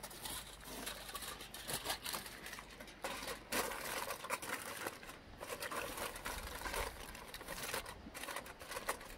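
Aluminium foil crinkling and crumpling as hands press and crimp it down around the rim of a cast iron skillet to make a lid. The crackles come irregularly throughout.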